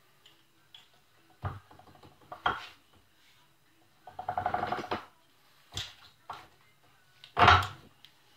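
Metal clanks and knocks from the cast-iron Champion drill press being worked by hand while it is stopped. There is a short rattling run of rapid clicks about four seconds in, and the loudest clank comes near the end.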